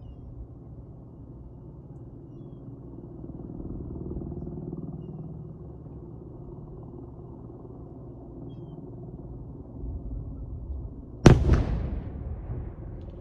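Explosive avalanche-control charge going off, heard as one sharp boom most of the way through that dies away over about a second, over a steady low rumble.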